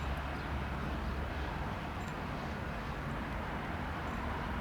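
Distant aircraft engines running at low power: a steady, even low drone.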